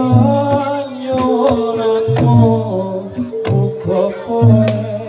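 Loud live Javanese jathilan accompaniment: sharp hand-drum strokes over long held melodic tones, with a voice singing.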